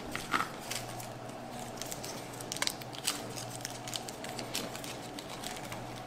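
Small metal parts and plastic being handled: scattered light clicks and crinkling as screws and a metal cooler mounting bracket are picked up and turned in the fingers.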